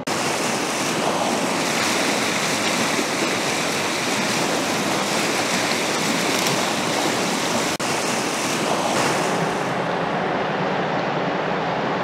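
Whitewater rapids of the Laxá river rushing steadily, with a brief dropout about eight seconds in.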